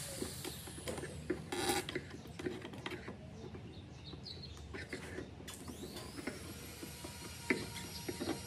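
A small hand scraper picking and scraping at the top of a wooden speaker cabinet: a string of short scratchy strokes and clicks, with one longer scrape about two seconds in.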